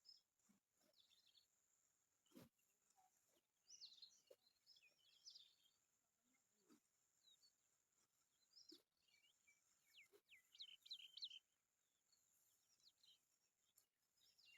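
Faint birdsong: clusters of high chirps, with a few soft clicks in between.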